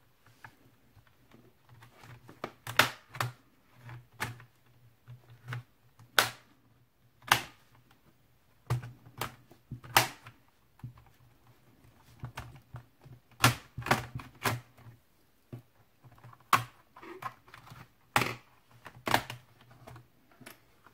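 Plastic snap-fit clips of an Asus F550Z laptop's keyboard top case clicking loose as a plastic pry tool is worked around its edge: a string of sharp, irregular clicks.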